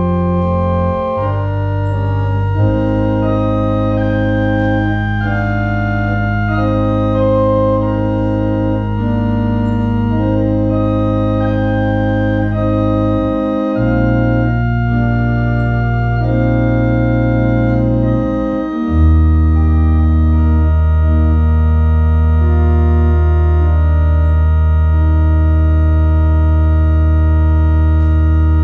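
Organ playing the offertory: slow sustained chords over long held bass notes. Near the end it closes on a louder final chord held for about ten seconds.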